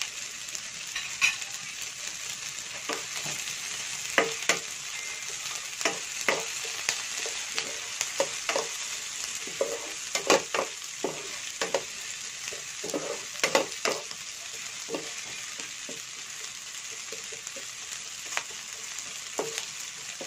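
Sliced carrots, red bell pepper and onion sizzling in oil in a nonstick frying pan, stirred with a wooden spatula that scrapes and knocks against the pan at irregular moments.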